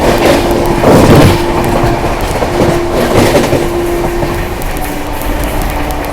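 Train horn sounding in a run of long steady blasts as an express train passes through a station at speed without stopping, with wheels clattering loudly over the rails. The horn drops a little lower in pitch about four and a half seconds in and holds there.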